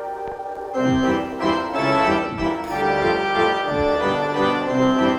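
Background music of held keyboard chords with an organ-like sound, the notes changing every half second or so.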